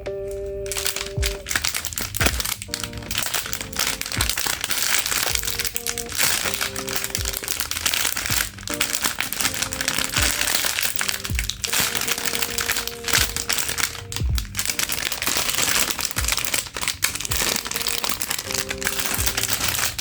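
Package wrapping crinkling and crackling throughout as it is handled, over background music.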